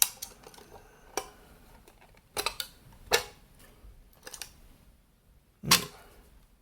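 Sharp clicks and knocks from handling an electronics casing while its front is worked loose, about six in all, with the loudest knock near the end.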